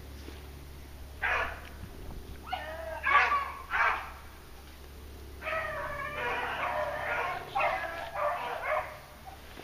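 Beagles baying while running a rabbit: drawn-out, bending cries in repeated bursts, with a short lull a little before the middle.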